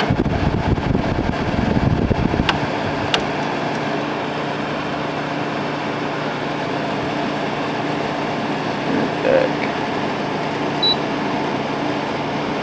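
TCL 5,000 BTU air conditioner running with its fan on high while cooling: a steady rush of air over a low steady hum. Two light clicks come a few seconds in.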